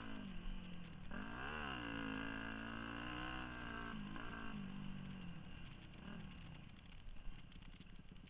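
2002 Yamaha YZ250F's 250 cc four-stroke single-cylinder engine running under way on a dirt trail. The revs drop and climb again about a second and a half in, hold steady, dip once more, then the engine note fades as the bike eases off and slows.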